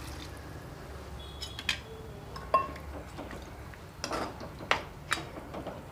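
Steel ladle stirring chicken and freshly added water in a kadai, clinking and knocking against the pan several times.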